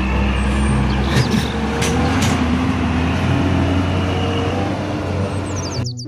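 Fuel tanker truck's engine running steadily as the truck drives through deep mud, with a few short sharp noises in the first couple of seconds. The truck sound cuts off suddenly near the end.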